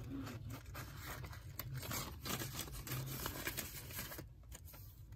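Paper banknotes being handled, a run of short rustles and light scrapes, as counted cash is sorted for a budget envelope.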